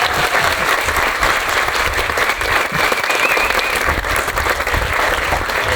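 Audience applauding, steady throughout.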